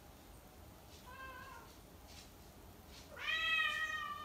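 Small house cat meowing twice, calling out as it searches for its owners: a short, quieter meow about a second in, then a louder, longer meow from about three seconds in that falls in pitch at the end.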